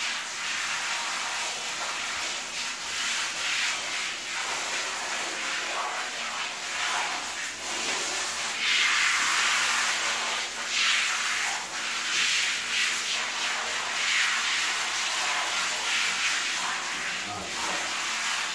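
Handheld shower head spraying lukewarm water onto a wet dog's coat and the tiled floor: a steady hiss that swells and dips as the spray moves over her.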